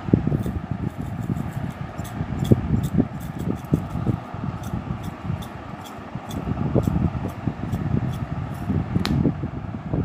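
Chili-flake shaker jar being shaken over a plate: a run of small irregular clicks and taps over a steady low rumble.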